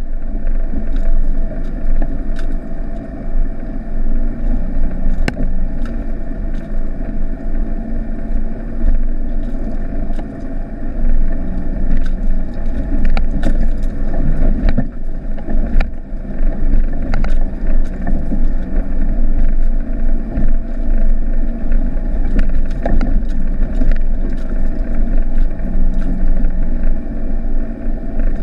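Mitsubishi Delica's 2.8-litre turbodiesel engine running steadily at low speed, heard from inside the cabin, with scattered short knocks and rattles as the vehicle goes over a rough dirt track.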